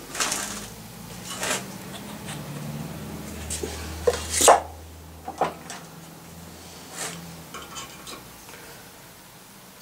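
Metal hand tools clinking and knocking as they are picked up and set down on a workbench, a T-handle tap wrench among them, with one louder clunk about halfway through. A low steady hum runs underneath.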